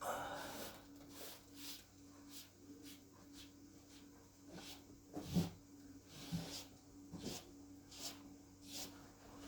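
Repeated hand rubbing or scraping strokes on a ceiling surface, about one every 0.7 seconds, over a faint steady hum. There is a louder knock about five seconds in.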